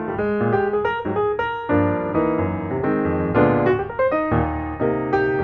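Background piano music: a melody of quick single notes, thickening into fuller chords a couple of times.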